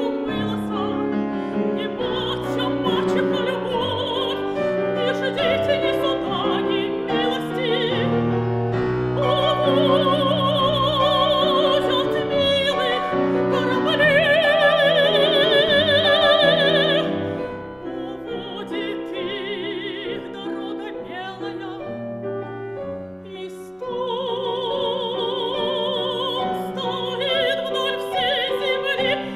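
Operatic soprano singing a Russian romance with wide vibrato, accompanied on a grand piano. About halfway through she holds a long, loud note, then the music drops softer for a few seconds before the voice returns at full strength.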